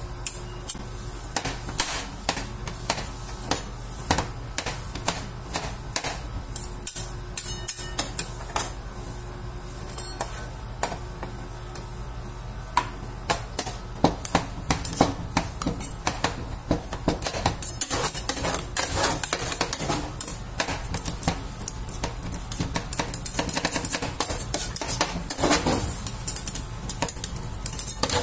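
Metal spatulas chopping and scraping on a stainless-steel ice cream cold plate, breaking up frozen ice pop pieces: rapid clacking strikes that grow denser and louder from about halfway.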